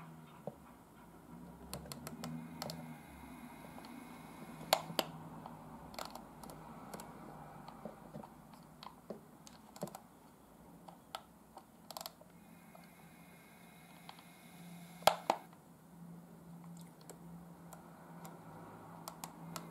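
Sharp plastic clicks of a Trix Mobile Station model-railway controller's buttons and speed knob being worked, about eight of them, the loudest around 5 and 15 seconds in. Beneath them runs a faint, steady low hum from the N-scale diesel railcar model's motor as it runs along the track, with its engine sound switched off.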